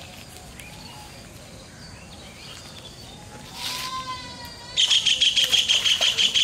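Faint outdoor background with a short drawn-out call a little past halfway, then a loud, rapid, high chirping starts suddenly about three-quarters in, pulsing about eight times a second.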